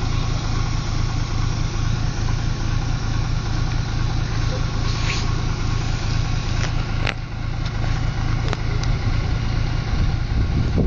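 An engine running steadily at idle, with a strong low hum; a few sharp clicks about seven and eight and a half seconds in.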